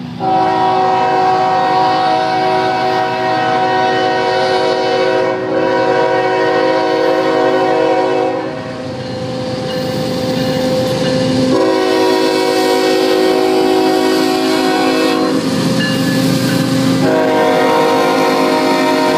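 Union Pacific GE diesel locomotive's multi-chime air horn blowing long blasts for a grade crossing: a first blast of about eight seconds, a second of about four, and a third starting near the end. The locomotives' diesel engines run hard under the horn and fill the gaps, as the train accelerates from a stop.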